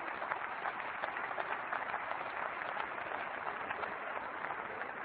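Applause from a parliamentary audience: many people clapping steadily together, easing off a little toward the end.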